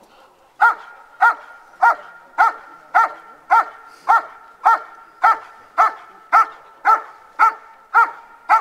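German shepherd dog barking at a protection helper, a steady, evenly spaced run of single barks about two a second, starting just over half a second in.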